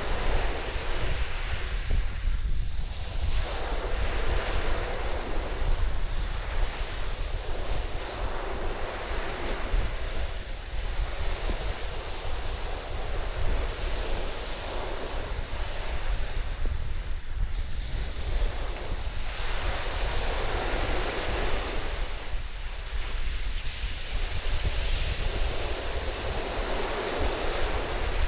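Surf washing up a sand beach, the waves swelling and fading every few seconds, under a constant low rumble of strong wind buffeting the microphone.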